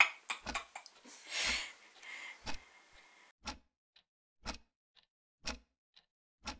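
A clock ticking steadily, about two ticks a second, alternating a louder tick with a softer tock. Faint room tone with a soft breathy noise behind it cuts out a little after three seconds in, leaving only the ticking.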